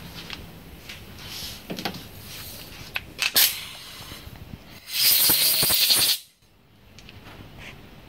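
Compressed-air blow gun blasting into a small two-stroke carburetor body to clear its passages: one hiss of about a second, about five seconds in, after a few sharp handling clicks.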